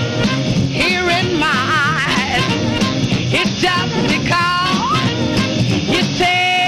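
Rhythm and blues record playing: a band with a melody line that wavers in pitch, without sung words.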